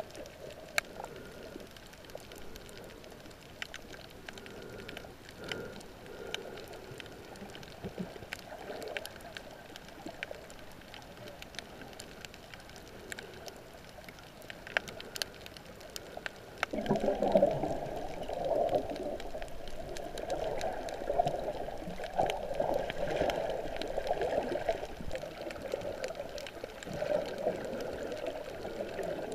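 Underwater sound picked up by a camera submerged over a shallow coral reef: muffled water swishing and gurgling with scattered faint clicks. About two-thirds of the way through the swishing grows louder and stays so.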